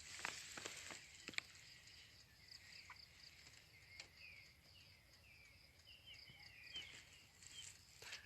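Faint outdoor ambience of short, high chirps repeating several times a second from small wild creatures, with a few soft clicks in the first second and a half and one about four seconds in.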